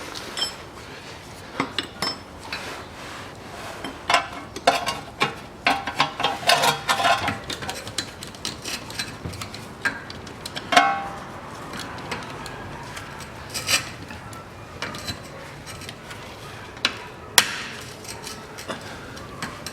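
Steel hand tools clinking and knocking irregularly against metal: a socket wrench and a ring spanner working a stubborn nut on the gearshift linkage support, its bolt held from above because it spins with the nut.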